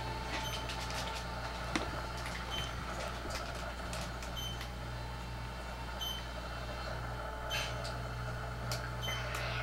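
Toshiba Satellite laptop running just after power-on: a steady low hum with faint scattered clicks and short high ticks every second or two.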